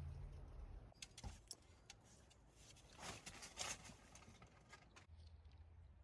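Near silence, with a few faint clicks and two soft rustling sounds about three seconds in.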